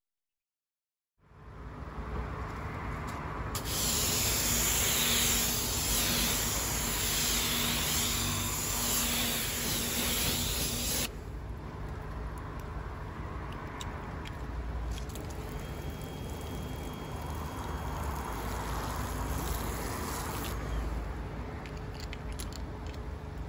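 Water spraying onto a car's painted bonnet: a loud steady hiss for several seconds, then after a sudden drop a softer steady rush of water with a few light ticks.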